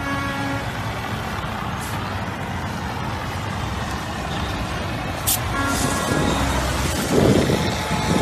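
Handheld fire extinguisher discharging with a steady hiss, sprayed onto a burning car, with highway traffic behind it. The rush of noise grows louder about seven seconds in.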